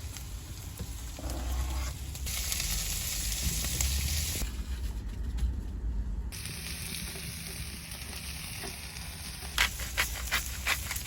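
Steady hiss of rain falling on a van's roof, its tone shifting abruptly a few times, with a quick run of sharp clicks near the end.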